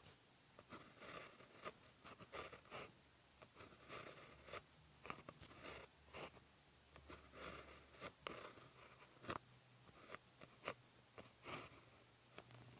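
Faint scratching of a pen writing on paper, in short irregular strokes with brief pauses between them as handwritten characters are formed.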